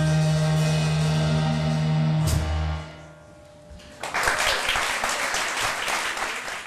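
A band's sustained chord, struck again about two seconds in, fades out at about three seconds; about a second later applause breaks out and carries on.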